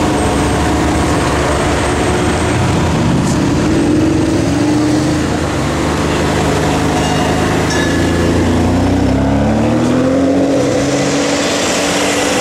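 Ferrari 599 GTB Fiorano's V12 engine pulling away at low speed, its note rising twice as the car accelerates.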